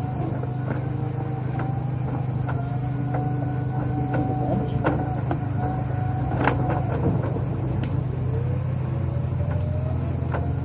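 Dryer vent cleaning equipment running steadily with a low hum, with scattered sharp clicks and knocks throughout.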